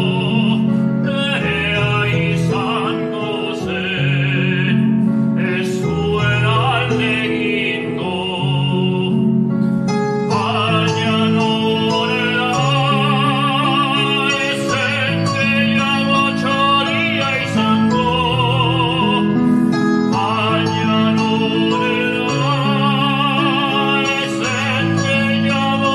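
A man singing in a trained, operatic style with wide vibrato, over a steady instrumental accompaniment of held low notes; the voice breaks off briefly between phrases.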